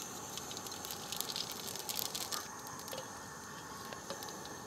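Fennel seeds dropped into hot coconut oil in a large aluminium uruli, sizzling faintly with scattered small crackles from about a second in.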